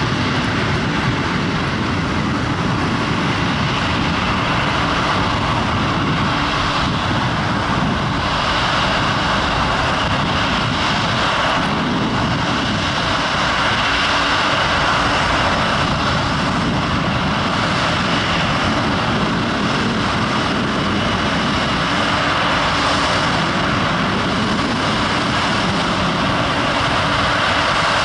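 Boeing 777-200's twin turbofan engines running at taxi power: a steady rushing jet noise with a high whine over it, getting a little louder as the airliner comes closer.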